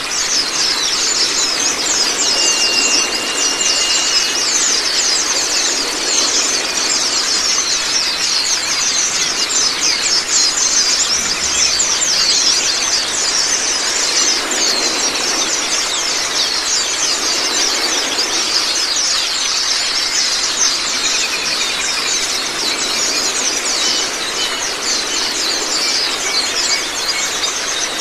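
Zosterops white-eyes (pleci) twittering in a dense, unbroken stream of rapid high chirps, over a steady rush of running water.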